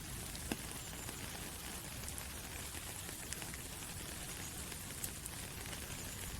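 Soft rain falling through forest trees onto leaves: a steady even hiss with a few single drops ticking out clearly.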